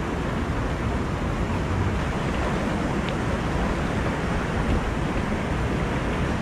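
Steady rushing noise of wind buffeting the microphone, heavy in the low end, with a faint click about three seconds in.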